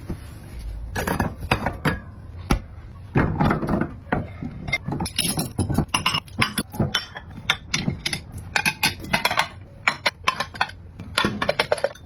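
Dishes and cutlery being handled during washing up, clinking and knocking against each other in a quick, irregular series of sharp clatters.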